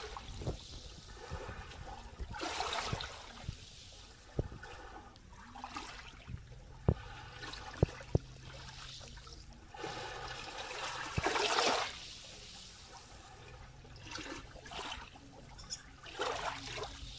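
Small ripples of seawater washing in over sand and lapping at the shore in gentle surges every few seconds. A few short, sharp clicks come in between the surges.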